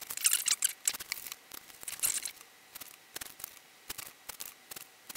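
Utility knife slicing through printed paper along a wooden yardstick: a string of quick, scratchy cutting strokes, with sharp clicks and taps in between.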